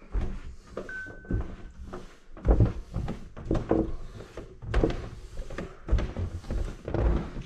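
Footsteps going down a flight of indoor stairs: heavy thuds about once a second.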